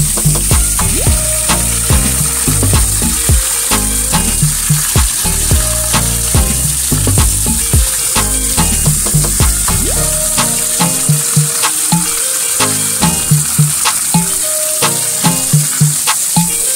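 Water from a garden hose spraying onto leaves and potted plants: a steady crackling hiss and patter. Background music runs underneath, with low notes and a regular beat that is clearest in the second half.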